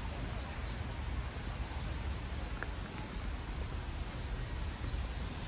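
City street ambience in rain: an even hiss over a steady low rumble, with one sharp click about two and a half seconds in.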